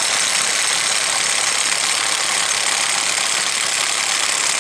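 Pneumatic impact wrench running continuously on a stubborn nut on a Honda automatic transmission, steady and loud without a pause.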